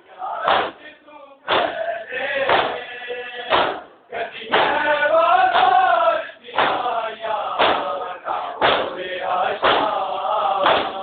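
A crowd of men chanting a noha, a Shia lament, in unison. Sharp hand slaps from synchronized chest-beating (matam) fall in a steady rhythm about once a second.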